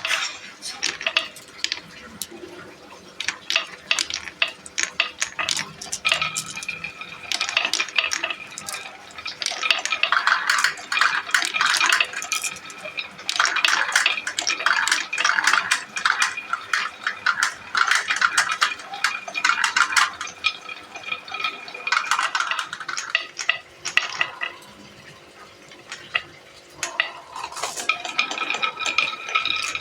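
Marbles rolling and clattering down a marble run's tracks and transparent pipes: a dense stream of clicks and rattles with a rolling ring, coming in waves, with a quieter stretch about three-quarters of the way through.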